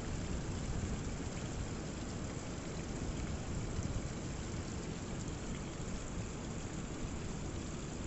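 Rainwater running and splashing down a rock cliff face in thin falls, over a steady low rumble of rough sea.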